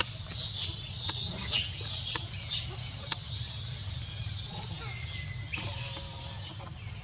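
Leafy branches rustling in a run of short, quick bursts, about two a second, for the first three seconds, then once more near the end.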